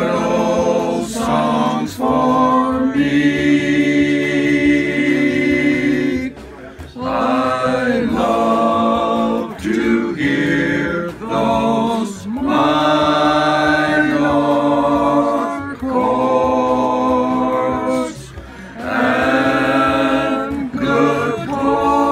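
A group of singers singing a cappella in harmony, holding long chords in phrases of a few seconds with short breaths between them.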